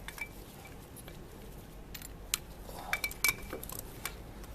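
Metal hand tools and parts clinking and tapping against each other during hand work on a motorcycle alternator: a scatter of sharp clinks, some with a short metallic ring, the loudest cluster about three seconds in.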